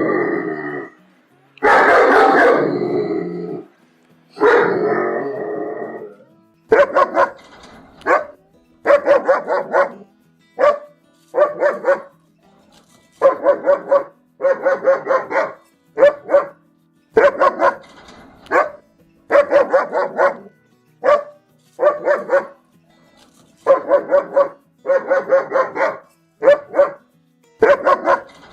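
Angry German Shepherd barking and growling. It opens with three long, harsh growls that each fade, then barks in quick clusters of two to four, repeating about every two seconds.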